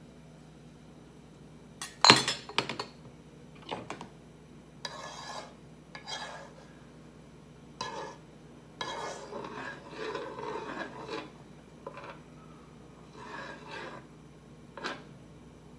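Kitchen utensils and cookware clinking and scraping: a sharp clink about two seconds in, then a series of short scrapes and clatters.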